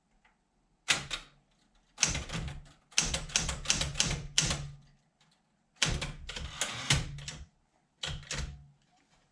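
Keys of a 1968 Smith-Corona Sterling manual portable typewriter being typed in short bursts, with the typebars clacking against the platen and pauses of about a second between bursts.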